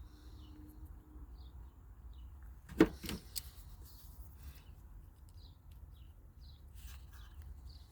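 A sharp plastic click about three seconds in, followed by two smaller clicks, as a horn's wiring connector is worked loose and unplugged. Faint bird chirps in the background.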